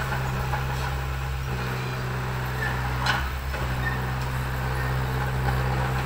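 Bulldozer engine running steadily at an even speed.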